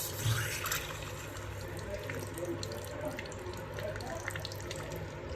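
Water running from a tap in newly plumbed pipes, with a louder rush in the first second, then a steady flow.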